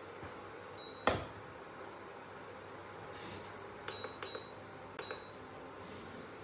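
A frying pan and spatula knocking and clinking against a bowl as fried beef fillet tips are scraped out of the pan. One sharp knock about a second in, then a few lighter clinks around four and five seconds in.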